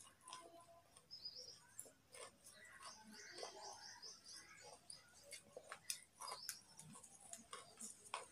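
Raw carrot being chewed with the mouth mostly closed: faint, irregular crunches and mouth clicks. A quick run of high chirps sounds in the background around the middle.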